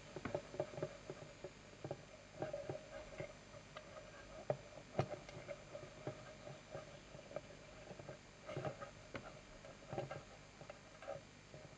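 Irregular small clicks and taps of little metal parts being handled and fitted onto the flywheel crank of a low-temperature Stirling engine model, with a couple of sharper clicks about five seconds in.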